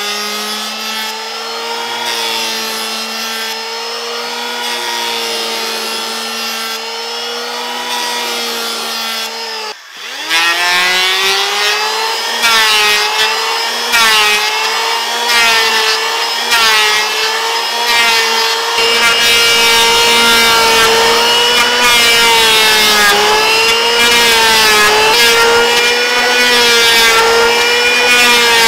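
Electric hand planer running while shaving a wooden board, a steady high motor whine whose pitch wavers as the blades cut. It cuts out briefly about ten seconds in and spins back up.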